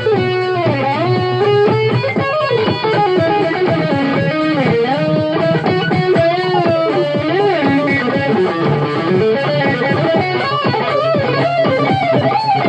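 Electric guitar playing a melodic lead line full of string bends and wide vibrato, over a steady low backing.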